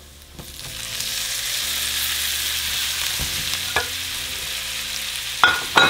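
Asparagus spears sizzling in hot butter, oil and garlic in a nonstick frying pan. The sizzle swells within the first second as they go in, then holds steady. A few sharp clinks cut through it, the two loudest near the end.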